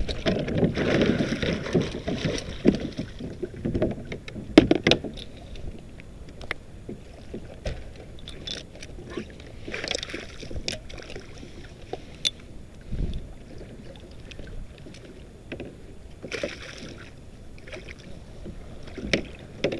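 Water splashing and slapping against a plastic kayak hull as a hooked small king mackerel thrashes at the surface beside it, in bursts, with scattered clicks and knocks from the boat and rod. The loudest sound is a single sharp knock about four and a half seconds in.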